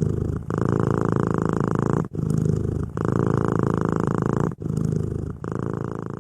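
A cat purring in long, rapidly pulsing stretches, each broken off by a short gap where the breath turns, five or six phases in all.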